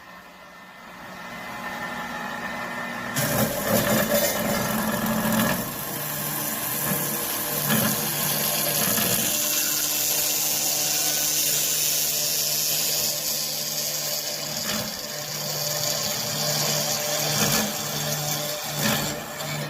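Manual HSS circular cold saw (PDS400) running with a steady motor hum. About three seconds in the blade begins cutting metal stock, adding a loud high hiss and rasp that lasts until just before the end.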